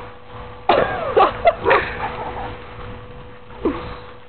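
Several short yelps, falling in pitch, about a second in, with a fainter one near the end.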